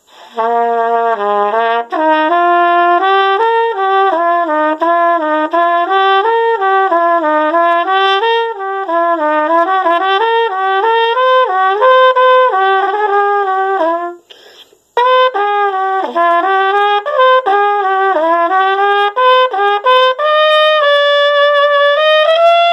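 Yamaha Xeno trumpet played as a warm-up: quick runs of notes up and down, with a brief pause about 14 seconds in, then a long held note near the end.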